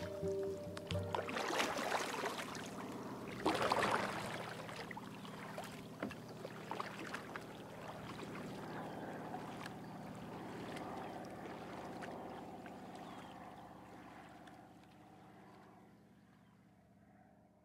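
Kayak paddle dipping into lake water, two splashing strokes about two and four seconds in, then water dripping and lapping against the hull, fading out slowly.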